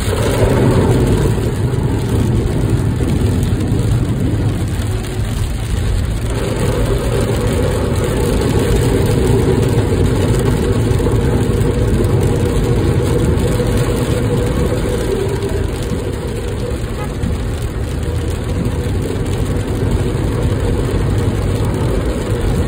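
Vehicle driving, heard from inside the cabin: a steady low engine and road rumble, with a mid-pitched hum coming in about six seconds in.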